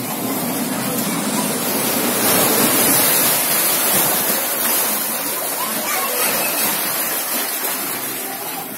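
Seawater surging into a rocky seashore cave and rushing across its stone floor around the shivalingas: a steady wash of water that swells in the first few seconds and slowly ebbs toward the end.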